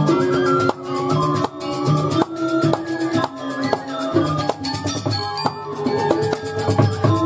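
Balinese gamelan playing a dance accompaniment: struck metal keyed instruments ring out in quick, shifting notes over drums, with a rapid metallic shimmer of small cymbals above.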